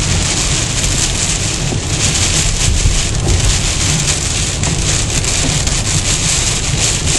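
Heavy storm rain beating on a car's windshield and body while gusty wind buffets the car, heard from inside the cabin as it drives. The noise is loud and steady, with a low rumble underneath.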